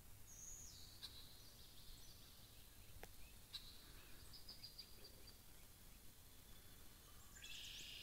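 Faint songbird calls over a low steady rumble: a short falling note near the start, a quick run of chirps in the middle, and a louder chattering burst near the end.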